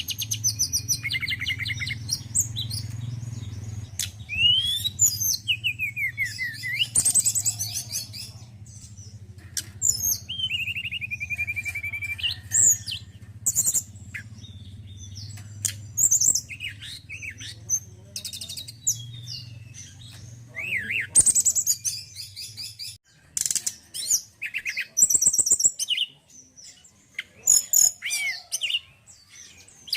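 Male tledekan gunung songbird singing a varied run of high chirps, rapid trills and gliding whistles, with pauses between phrases. A low steady hum lies under it and stops suddenly about two-thirds of the way through.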